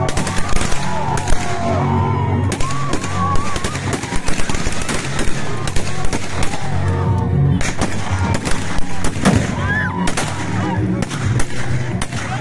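Many rifles fired into the air in a celebratory gun salute: dense, irregular overlapping shots and short rapid bursts, with some louder single cracks standing out, over music with a steady low beat.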